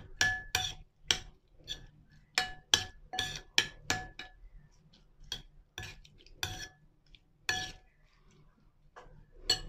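A metal spoon tossing chicken larb in a ceramic bowl, knocking the bowl in short ringing clinks about two or three times a second, with a brief pause near the end.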